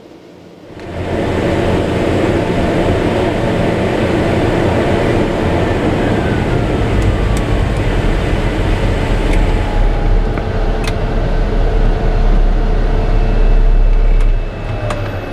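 TBM 850's PT6A turboprop engine and propeller running loud and steady, starting suddenly about a second in, with thin whining tones slowly falling in pitch.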